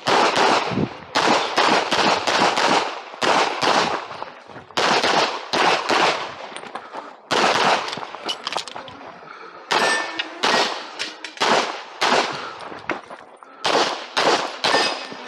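Semi-automatic pistol fired rapidly in quick pairs and short strings, with brief pauses between groups while the shooter moves and engages new targets during a timed practical-shooting stage.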